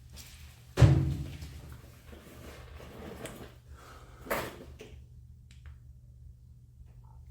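A loud, deep thump about a second in that dies away quickly, then a shorter, sharper knock a little past the middle, over faint room noise.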